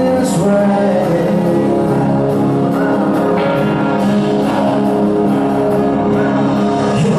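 Rock band playing live: guitars ringing out on held chords, with singing.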